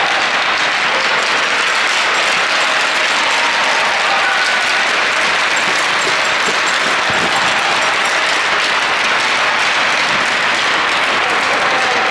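Steady applause from spectators clapping, a dense even crackle of many hands that holds at the same loudness throughout.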